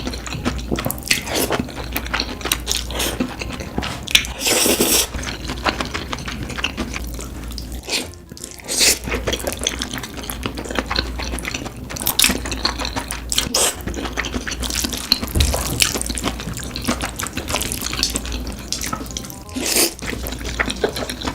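Close-miked mukbang eating sounds: wet chewing, smacking and slurping, a dense run of irregular clicks with a longer slurp about four and a half seconds in.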